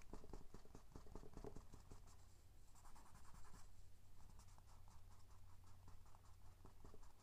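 Faint, quick scratchy strokes of a drawing tool shading on paper, several strokes a second.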